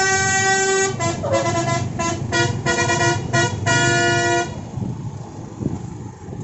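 Bus's Basuri telolet horn playing a tune: a held note, a quick run of short staccato notes, then a final held note. It stops about four and a half seconds in, leaving the bus's engine and road noise.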